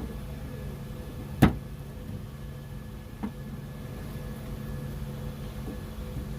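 Two clicks of plastic door-handle parts being handled inside a car door: a sharp, loud one about a second and a half in and a fainter one near the middle, over a steady low hum.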